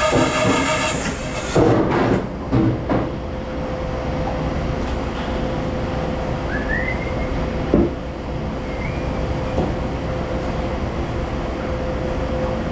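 Steady mechanical rumble with a constant hum underneath. A chord-like tone fades out about a second in, a few knocks come around two and three seconds, and two short high squeals come near the middle.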